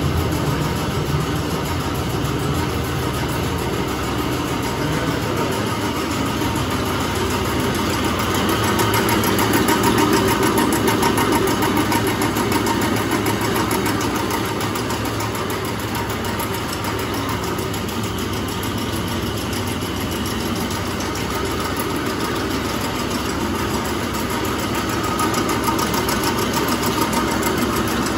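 Bulgur mill machinery running: electric-driven grinding mill, screw conveyors and sieve working as wheat passes through, a dense steady mechanical noise that swells a little around ten seconds in.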